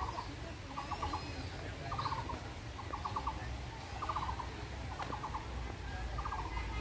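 An animal calling repeatedly: short rattling bursts of four to six quick pulses, about one burst a second. A few faint, higher bird chirps sound above it.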